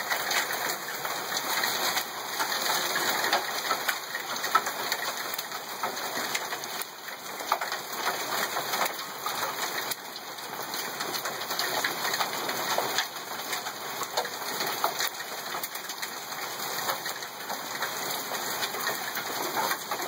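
Hailstorm: heavy rain with small hailstones falling, a steady rushing hiss dotted with many sharp ticks of hail hitting the ground.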